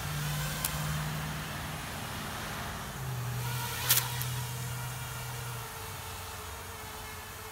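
Small FPV racing quadcopter's electric motors and propellers running with a steady hum, its pitch stepping down about three seconds in as it lifts off, with a sharp knock just before four seconds.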